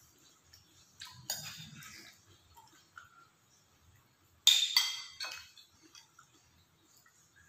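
Cutlery clinking against ceramic plates and dishes at a meal table. There are a couple of sharp clinks about a second in, and a louder ringing clink about four and a half seconds in, followed by a smaller one.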